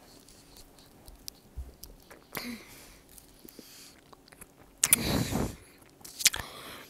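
Mouth noises of a person sucking on hard cinnamon Atomic Fireball candies held in the cheeks: a few breathy, wet bursts with small clicks, the loudest about five seconds in.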